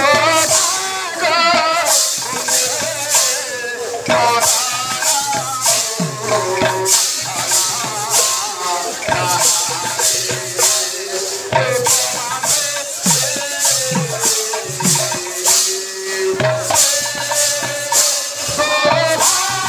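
Sambalpuri kirtan music: a melody line that slides and wavers in pitch, over bright metal percussion keeping a steady beat of about two strokes a second, with low drum strokes underneath.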